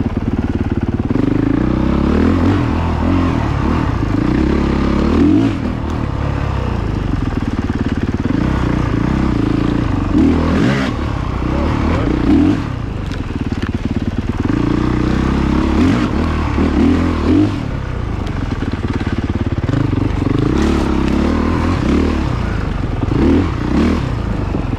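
Single-cylinder four-stroke engine of a Honda CRF450RX dirt bike heard close from the rider's seat, revving up and down as it rides, with a few brief dips as the throttle closes.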